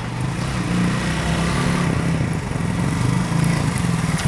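Irbis VJ 250 motorcycle's single-cylinder engine running at low speed as the bike rides up close, its note wavering slightly in pitch.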